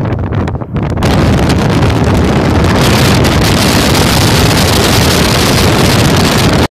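Wind buffeting the microphone over the low rumble of a moving vehicle. The rush jumps louder and brighter about a second in and then holds steady.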